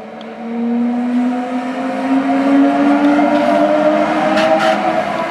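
Rhaetian Railway electric locomotive hauling a passenger train past at close range, its drive giving a whine that rises in pitch over the first three seconds and then holds, with a short hiss about four and a half seconds in.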